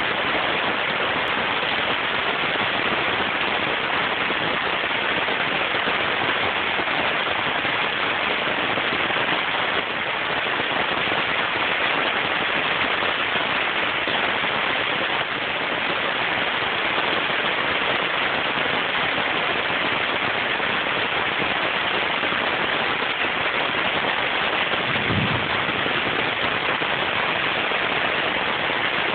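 Heavy thunderstorm rain pouring down steadily, a dense, even hiss of drops. Near the end there is one brief low thump.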